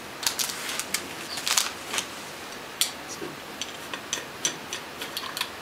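Chopsticks clicking and tapping against a small glass jar and dishes in an irregular run of sharp clicks.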